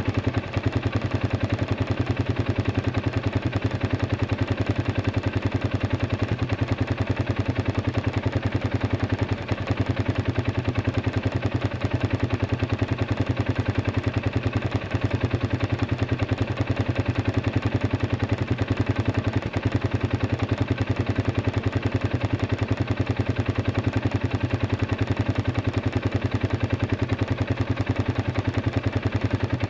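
Arctic Cat 500 ATV's single-cylinder four-stroke engine idling steadily, a fast even pulse with no revving.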